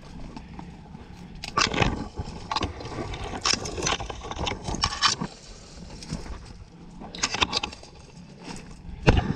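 Footsteps crunching through dry dead leaves and twigs, with bare branches scraping past: slow, uneven steps with crackling rustles, and a louder crunch near the end.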